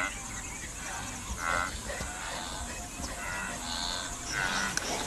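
Cheetahs chirping: short, high, bird-like calls repeated about every second and a half, as a mother and cub stay at a kill.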